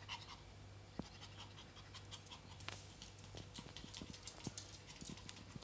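A Prague ratter, a tiny dog, panting faintly through an open mouth: heavy panting from the summer heat.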